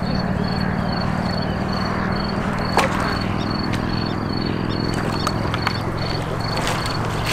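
An insect chirping in a steady, even pulse about two or three times a second, over a low steady hum; one sharp click about three seconds in.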